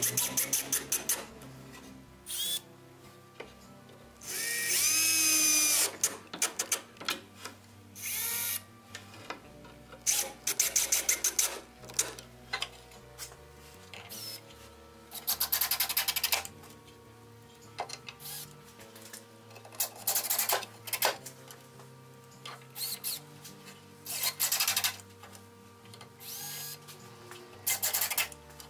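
Makita cordless drill-driver driving screws through steel seat irons into wood, in about a dozen short runs of a second or two, the motor whine rising in pitch as it spins up.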